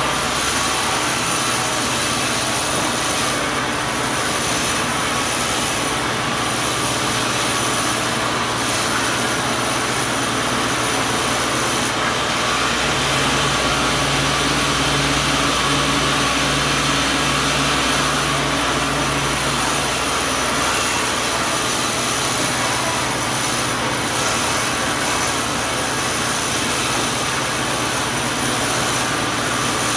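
Sawmill machinery running with a steady, loud mechanical drone and hum. The low hum shifts for several seconds from about halfway in, then settles back.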